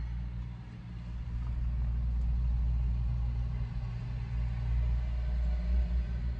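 Car engine idling, a low steady hum heard inside the cabin.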